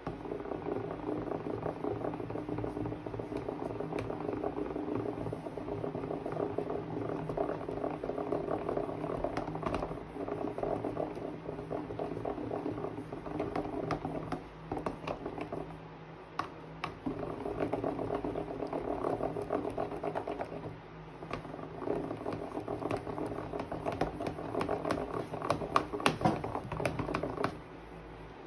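Plastic spoon stirring a sticky, foamy slime mixture in a plastic tub: a dense run of small wet clicks and squelches, broken by a few short pauses.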